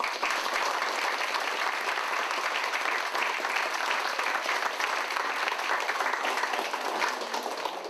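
A roomful of people applauding: steady clapping that dies away near the end.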